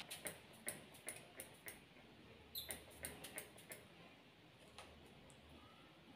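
Makeup setting spray pumped onto the face: a quick, faint series of short spray puffs, each a sharp click with a brief hiss, stopping about four seconds in.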